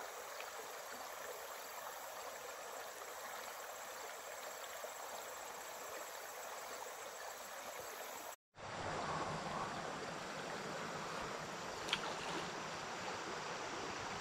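Creek water rushing steadily over a shallow, rocky riffle. A brief break about eight seconds in leads to a slightly louder, fuller rush, with a single click a few seconds later.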